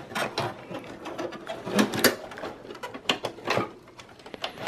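Irregular plastic clicks and rattles of a computer power cable being worked loose inside a desktop PC case, as the latch clip on the 4-pin CPU power connector is pressed to release it.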